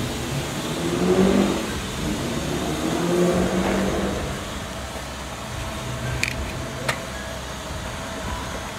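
Pickup truck engine revved hard twice during a burnout, its pitch rising and falling each time, then running on at a lower, steadier speed. Two sharp clicks come near the end.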